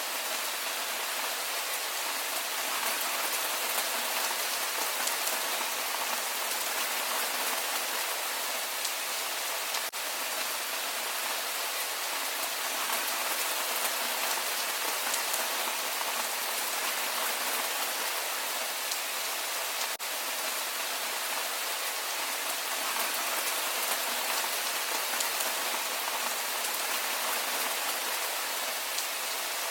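Steady rain falling, an even hiss of many drops that holds level throughout, broken only by two faint momentary dips about ten seconds apart.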